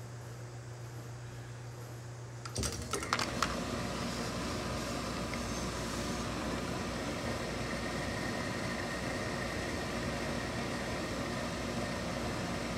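Tailor's steam pressing equipment switching on about two and a half seconds in with a few clicks and knocks, then running with a steady rushing hiss.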